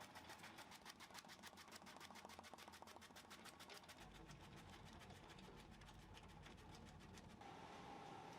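Faint food-processing machinery: a fast, even clicking, about eight clicks a second, with a low hum joining about four seconds in.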